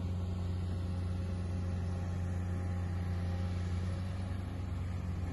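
Diesel engine of a hydraulic excavator running at a steady speed: an even low hum that holds one pitch throughout.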